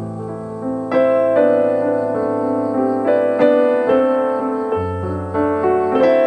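Background piano music: slow chords, a new one about every second, over held low notes.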